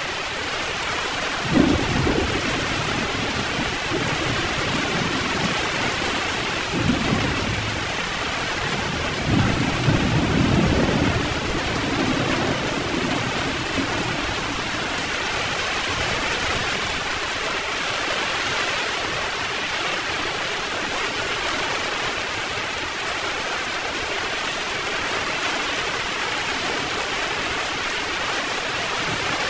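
Heavy rain pouring steadily, with thunder in the first half: a sharp clap about a second and a half in, a short rumble around seven seconds, and a longer rolling rumble around ten seconds. After that the rain continues alone.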